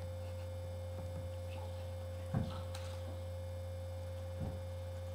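Steady electrical hum with a thin higher steady tone above it, and two faint brief knocks, one a little before halfway and one near the end.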